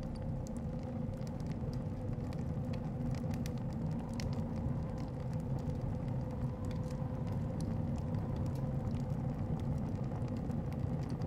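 Steady low rumble of blizzard wind heard from inside a hut, with a faint held whistling tone and a few light scattered clicks.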